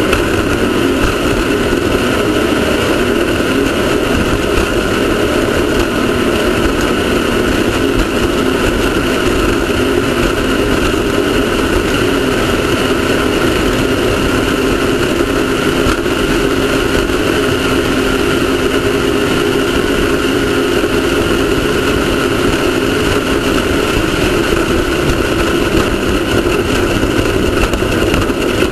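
Off-road race car's engine running hard at a steady pitch, with a constant rush of noise over it and no let-up.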